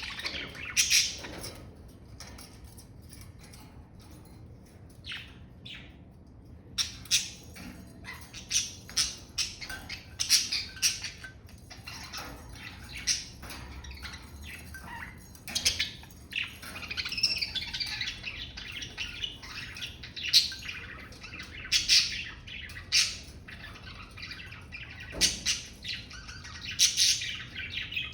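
Budgerigars chirping and chattering, with sharp squawks mixed among warbled calls that come in irregular flurries. The calls are quieter for a few seconds near the start, then busy again.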